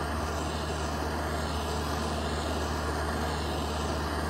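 Small handheld torch flame hissing steadily as it heats the plastic tank wall around a drilled hole to melt it, over a steady low hum.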